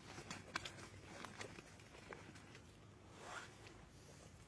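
Near silence, with a few faint clicks and rustles of handling.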